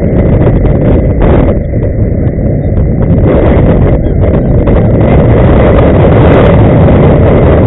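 Loud, steady rumble of inline-skate wheels rolling on asphalt, with wind on the microphone of a camera moving at skating speed.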